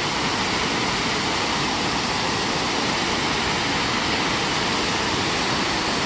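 Waterfall pouring over a rock ledge into a pool: a steady, even rush of falling water.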